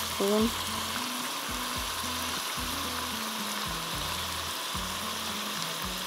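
Pieces of mutton sizzling steadily as they fry in oil in a pressure cooker pot, with salt and red chili powder just added.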